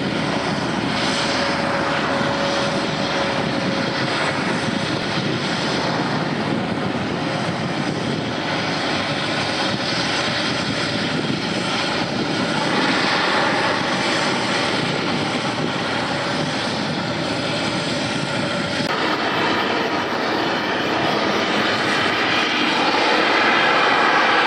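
Steady, unbroken drone of heavy machinery from a sand compaction pile vessel at work, with a faint steady tone through the first half.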